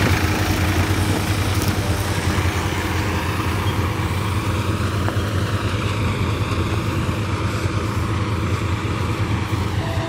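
Combine harvester and tractor running steadily while cutting and carrying wheat: a continuous heavy engine and machinery drone with a deep low hum.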